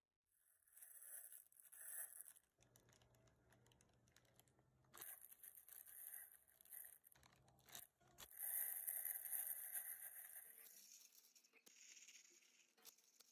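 A thin plastic bag crinkling and dried onion flakes pattering and scraping onto an oven tray, in several rustling bursts, the longest and loudest about two-thirds of the way in.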